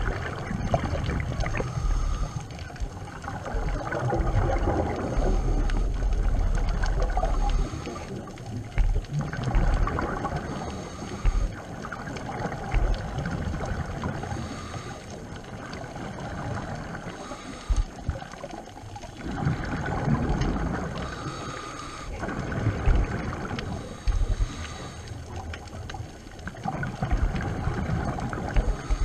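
Scuba regulator breathing recorded underwater: exhaled bubbles gurgling in bursts every few seconds, with quieter stretches between breaths.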